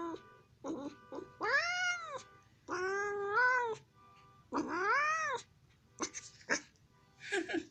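Domestic cat yowling: three long drawn-out meows that rise and fall in pitch, with shorter meows before, between and after them.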